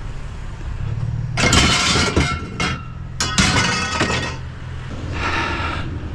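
Thin scrap metal pieces clanking and scraping as they are pulled loose from a pile, in two rattling bursts with some metallic ringing and a softer one near the end.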